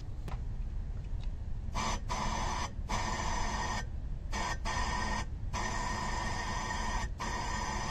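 Compressed air from a handheld air gun blown into an engine cylinder in a series of bursts: a buzzy hiss that starts about two seconds in, breaks off briefly several times and stops near the end. This is an improvised leak-down test on a cylinder with zero compression, checking whether the air escapes past a broken exhaust valve.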